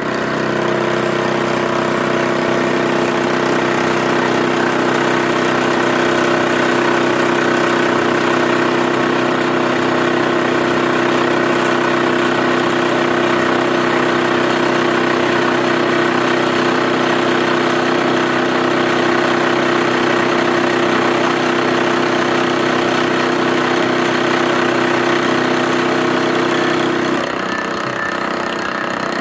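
Milling machine running steadily with a constant hum, which drops off suddenly near the end.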